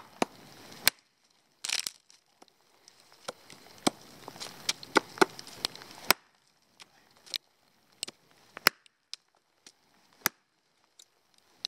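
Blade strikes chopping into a rotten stump: three sharp cracks in the first second, then scraping, tearing and crunching of fibrous decayed wood, with another hard strike about six seconds in and scattered lighter knocks after.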